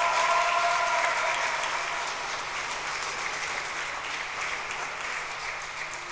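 Audience applauding, the applause slowly fading. The last held notes of the music die away in the first second.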